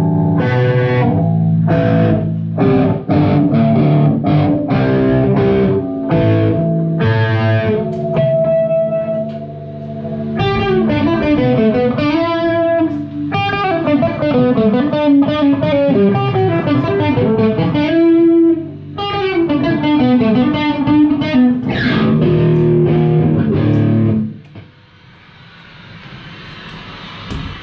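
Heavy distorted electric guitar played through an amp: stop-start chugging chords, then fast runs of notes. The playing stops about three-quarters of the way through, leaving a faint hiss.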